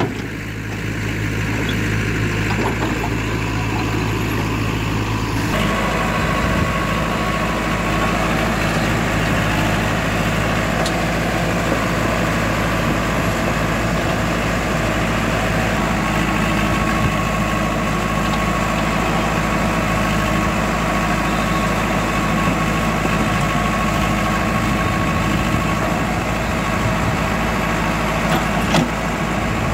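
JCB 3DX backhoe loader's diesel engine running steadily at close range while it works. The sound grows fuller about five seconds in, and there is a single knock near the end.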